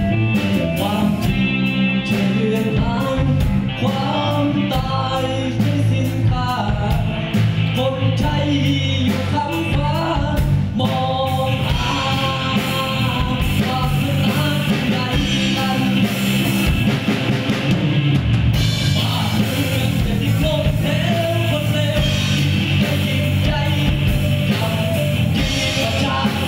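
Live rock band playing: a male lead singer sings over electric guitar, bass, violin and drums.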